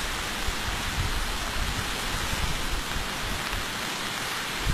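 Heavy rain falling steadily together with the rush of floodwater through the street, a continuous even hiss, with occasional low thumps.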